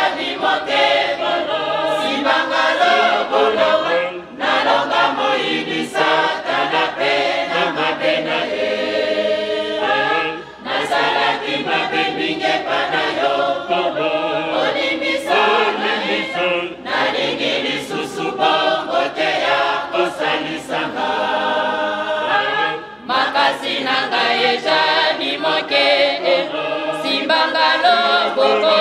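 Women's church choir singing a hymn together, with short breaks between phrases.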